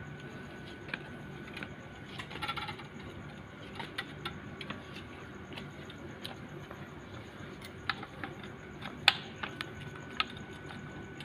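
Soft copper refrigerant tubing being wound by hand around a PVC pipe to coil it: scattered light clicks and taps of copper and plastic, the sharpest about nine seconds in, over a steady low hum.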